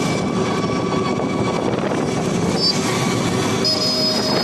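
Steady road and traffic noise heard from inside an open e-rickshaw on the move, with a brief high-pitched tone near the end.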